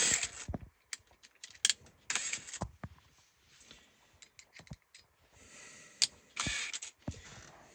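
Scattered small clicks and a few brief scraping rustles from hands working parts into place, as a turn signal assembly is lined up and fitted into the steering column.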